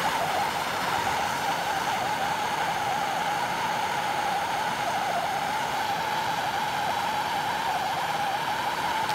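Blow lamp burning with a steady hiss while heating a copper end-feed elbow joint to run the solder.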